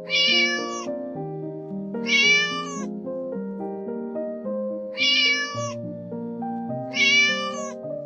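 Kitten meowing four times, high-pitched calls each under a second long, spaced about two seconds apart, over soft background music.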